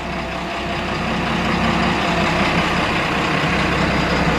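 A fishing boat's engine running steadily while trolling, a low drone, under a broad rushing noise of wind and water.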